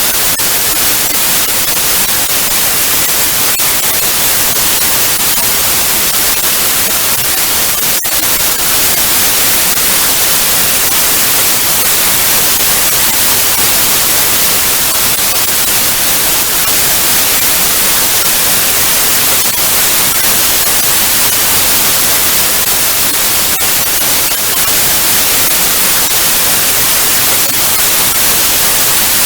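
Analogue TV static: a steady, loud hiss that is strongest in the highs, with a few faint crackling ticks.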